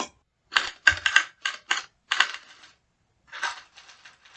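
Typewriter sound effect: keys clacking in quick, irregular clusters with short gaps between them.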